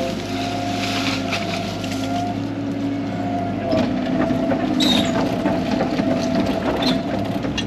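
A 13-ton excavator's diesel engine running steadily, its pitch rising and pulling harder from about halfway through as it works under load. Several sharp knocks and clunks land over it.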